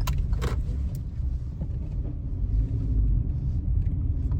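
Steady low rumble of a car, with a couple of short knocks right at the start and about half a second in.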